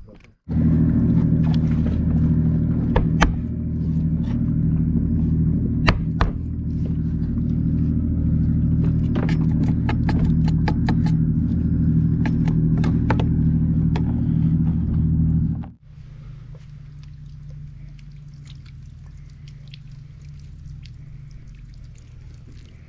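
A loud, steady low hum, with scattered sharp scraping clicks from a knife scaling a fish on a plastic cutting board. The hum cuts off suddenly about 16 seconds in, leaving a fainter low hum.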